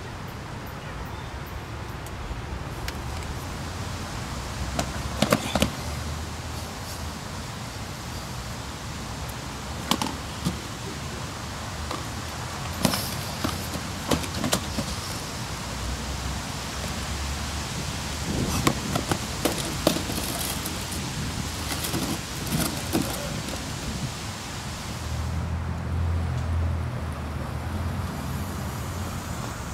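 Street noise: a steady hiss with low rumbles from passing traffic, broken by scattered sharp clicks and knocks.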